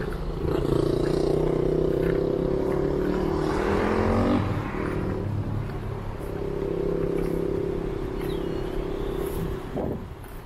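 Motor vehicle engine pulling away: a steady hum that climbs in pitch about four seconds in, drops as it changes gear, then holds steady again.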